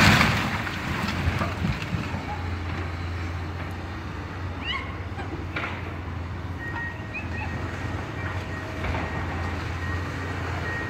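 Komatsu hydraulic excavator's diesel engine running steadily, with the crash of a toppled brick wall dying away in the first second. A couple of short high chirps come about halfway through.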